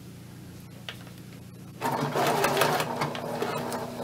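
Electric sewing machine starting to stitch a little under halfway in, then running steadily as it sews a straight line of stay stitching along the edge of a fabric skirt waistband piece. A faint click comes about a second in, before the machine starts.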